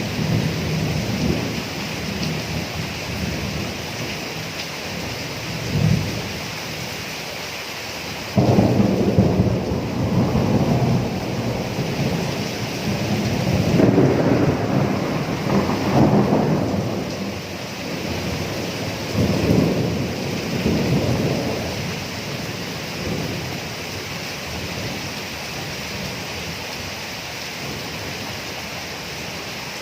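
Thunderstorm: rain falling steadily while thunder rolls. A thunderclap breaks in suddenly about eight seconds in and rumbles on for several seconds, and a further rumble follows around twenty seconds in.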